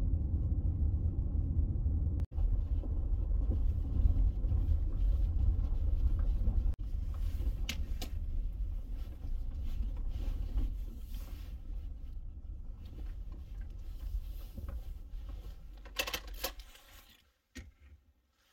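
Low rumble of a Honda Element driving, heard inside the cabin, with two brief breaks. It fades near the end as the car slows and stops, and a few sharp clicks follow.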